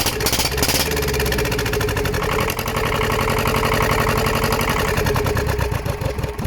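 Shibaura LE892 two-cylinder diesel engine running steadily on its own after being started, with a quick, even beat of firing pulses; it eases off slightly near the end.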